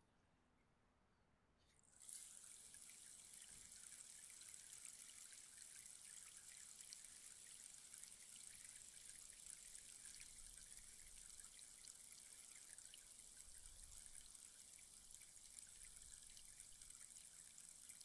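Rainstick turned upright, its filling trickling down inside as a faint, steady, rain-like patter of fine high clicks that starts about two seconds in.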